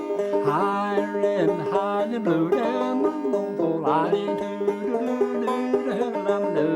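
Five-string banjo played solo, picking a lively old-time tune without a break.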